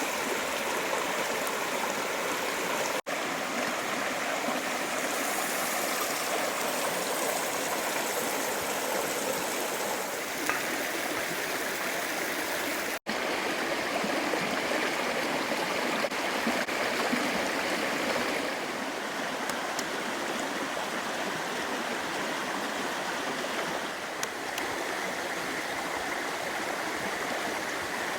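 Creek water running steadily over rocks, an even rushing babble, with two very brief dropouts about 3 and 13 seconds in.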